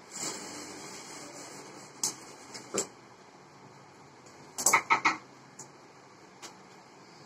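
Stitched fabric rustling as it is pulled from the sewing machine and slid across the table, with a few sharp clicks and a quick cluster of louder clicks about five seconds in.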